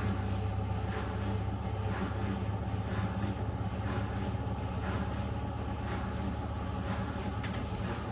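Candy GrandO Vita Smart Fi+ washing machine running a wash programme: a steady motor hum with a faint swish about once a second.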